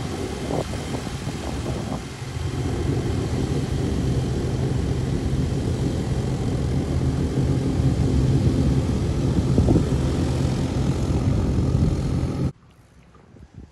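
Airboat's engine and large caged air propeller running steadily as the boat passes at speed, a loud even drone. It cuts off suddenly near the end.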